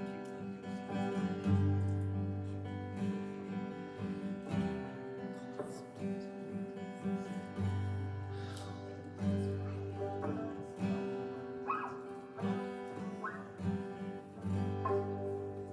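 Soft worship music: acoustic guitar strumming over long, held low notes that swell in and out several times.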